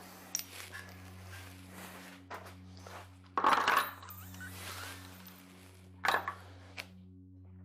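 Metal clinks and clatter of cylinder head bolts being pulled from a Chevy 350 small-block and set down, a few separate clinks with one louder clatter about halfway through. A steady low drone hums underneath.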